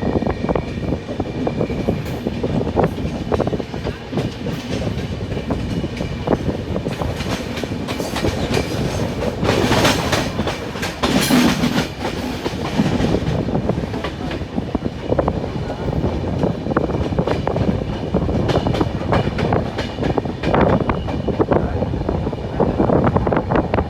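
Train running along the track, heard from on board: a steady rumble with repeated clicks of the wheels over the rails, and a stretch of louder rushing noise around the middle.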